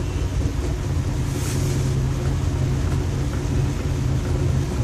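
Room air cooler's fan and motor running steadily: an even rushing of air over a low motor hum, with a brief soft hiss about a second and a half in.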